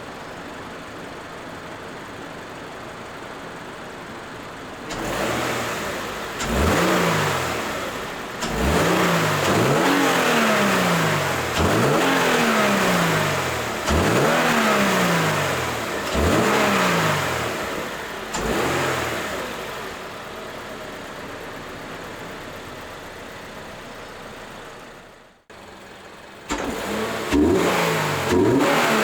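2024 Toyota GR86's 2.4-litre flat-four, fitted with a K&N cold air intake and stock exhaust, idling and then free-revved about seven times in short blips, each rev climbing quickly and falling back slowly, with plenty of intake noise. It settles back to idle, cuts out abruptly a few seconds before the end, then comes back with quicker revs.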